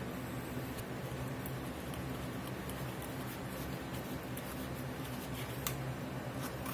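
A metal spoon stirring and scraping inside a stainless fine-mesh strainer held in a pot of chili sauce, working flour through the mesh, heard as a few faint light clicks and scrapes over a steady low hum.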